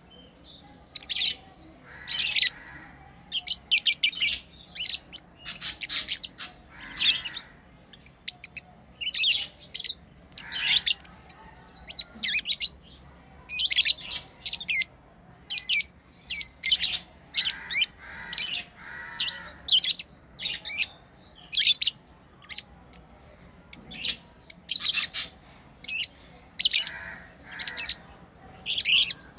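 Pet lovebirds chirping: short, sharp, high-pitched chirps in quick irregular bursts, some coming several a second.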